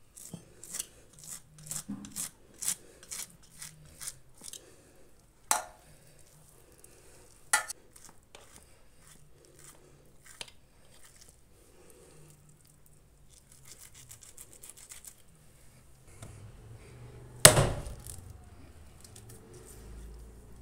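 Scissors snipping through goat head skin and flesh: a quick run of sharp snips for the first few seconds, then single snips every couple of seconds. Near the end comes one loud knock of a heavy chopping blade against a wooden block.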